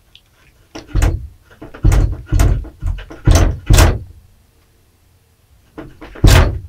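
A door being rattled and banged in quick bursts, a cat pushing and prying at it from the other side to get in. A rapid run of knocks over about three seconds, then two more near the end.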